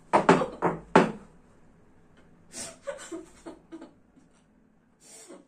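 A woman's muffled cries through a cloth gag: about four short, loud sobbing cries in the first second, then quieter whimpers, and a breath near the end.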